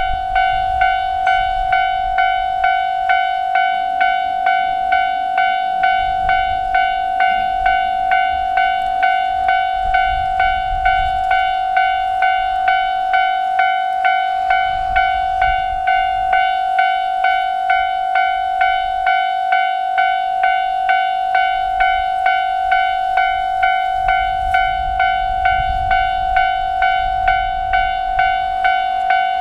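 Japanese railway level-crossing warning bell ringing steadily, about three strikes every two seconds, signalling that a train is approaching. A low rumble comes and goes underneath.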